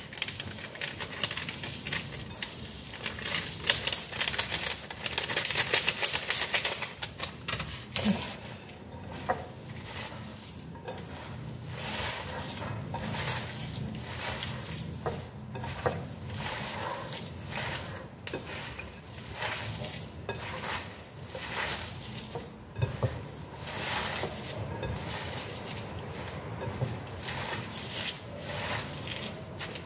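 Hands mixing a raw dumpling filling of shredded vegetables and meat in a glass bowl: irregular squishing and rustling strokes with small knocks against the glass. At first, seasoning powder is shaken from a packet over the bowl, a denser hiss.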